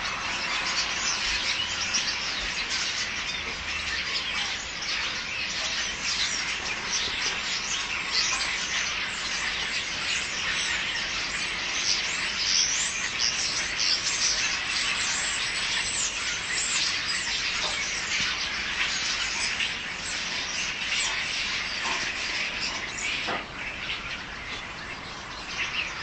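A large flock of small birds chirping and chattering together, many short calls overlapping into a dense, continuous chorus that thins slightly near the end.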